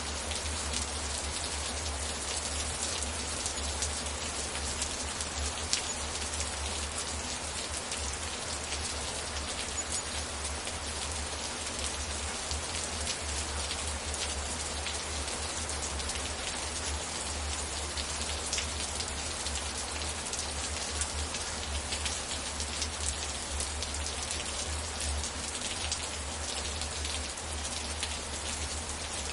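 Steady rainfall, a dense patter of individual drops hitting a surface with no letup.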